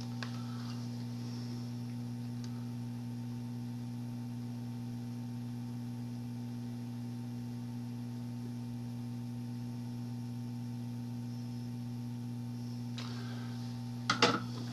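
Steady low electrical hum. A quick cluster of sharp clicks or taps comes near the end.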